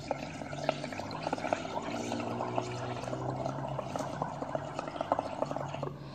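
Air blown through a drinking straw into a small cup of watery yellow paint, bubbling and gurgling steadily with many small pops as the froth builds up.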